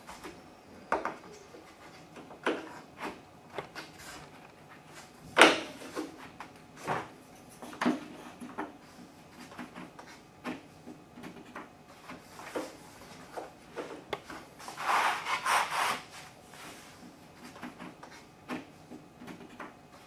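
Laminate floor planks being handled and fitted by hand over dimpled plastic underlayment: scattered wooden knocks and taps, the loudest about five seconds in, and a scraping rub lasting about a second, around fifteen seconds in.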